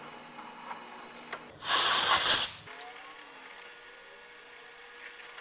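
A burst of compressed air from a blow gun, about a second long, blowing metal chips off a freshly drilled part held in a milling-machine vise. A few light clicks come just before it.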